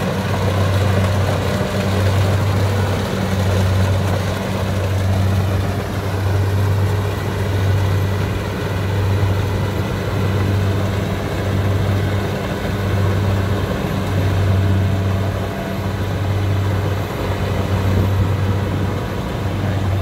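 Kubota DC70 Plus combine harvester running under load, its diesel engine and threshing machinery making a steady drone. A low hum swells and fades about every second and a half.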